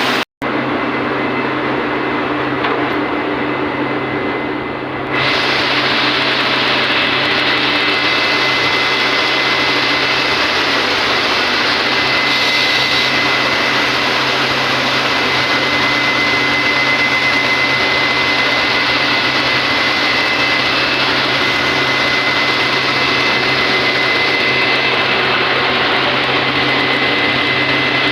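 Steady drone of running textile-mill machinery, a C75 carding machine, with a constant high whine and a low hum. It cuts out for a split second near the start, then turns brighter and louder about five seconds in.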